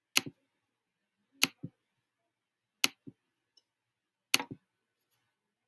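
Clicks of a computer pointer button: four sharp clicks about a second and a half apart, each followed by a softer second click, as an account entry in a stalled sign-in window is clicked again and again.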